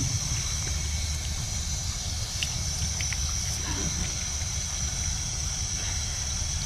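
Garden hose pistol-grip spray nozzle spraying water steadily onto a wet dog, a continuous hiss of the spray with water splashing and running off onto concrete, over a steady low rumble.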